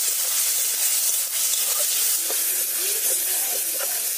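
Potato and small-fish curry frying in hot oil in a wok, a steady sizzle, with a metal spatula stirring and scraping in the pan.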